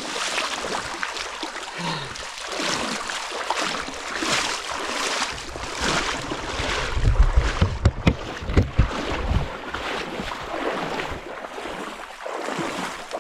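Footsteps wading through shallow swamp water, each stride a slosh about once a second. In the middle comes a cluster of loud low thumps on the microphone.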